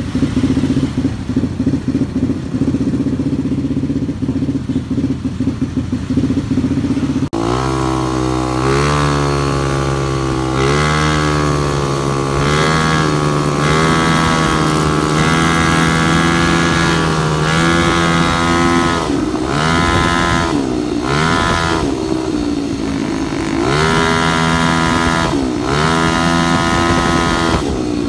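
Yamaha Mio scooter with a 215cc four-valve DOHC engine, idling steadily at first. After about seven seconds a cut brings the engine under way, its pitch rising and falling again and again as the throttle is opened and closed.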